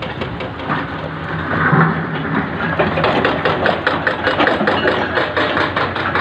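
Hydraulic breaker (rock hammer) on a Hyundai 330LC-9S excavator pounding rock in a fast, even train of blows, roughly eight a second, with the excavator's diesel engine running underneath.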